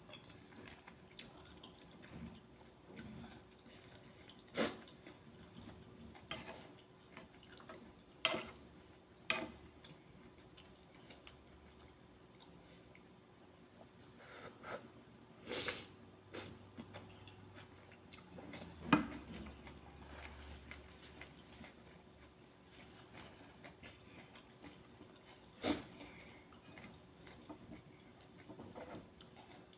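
A person eating Thai sukiyaki hot-pot noodles: faint chewing, with a handful of short sharp clicks scattered through.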